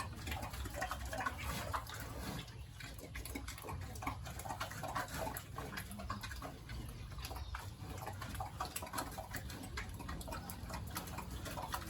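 Pigs making many short, irregular grunts and snuffling noises, over a steady low hum.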